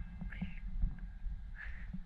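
Wind rumbling on the microphone, with two faint, brief higher-pitched sounds about half a second in and near the end.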